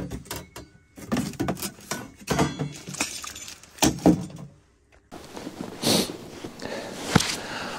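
Objects being handled: a run of sharp knocks, clicks and clatters for the first few seconds, then a rustling hiss with a couple of sharp clicks near the end.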